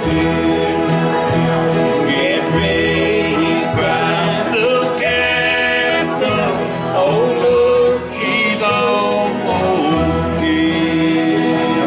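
Men singing a country gospel song to a strummed acoustic guitar, with a steady rhythm.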